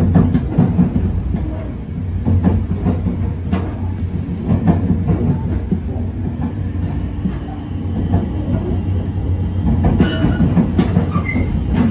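Running noise of a JR West 287 series limited express heard from inside the car: a steady low rumble, with the wheels clicking over rail joints about once a second and a few brief high squeals near the end.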